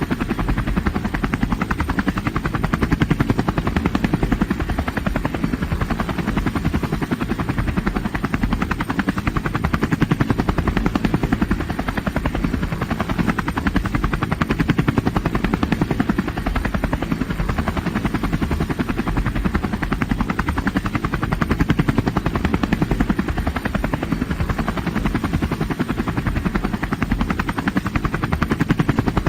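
Helicopter rotor chopping steadily in rapid, even beats, heavy in the low end, with the level swelling gently every few seconds.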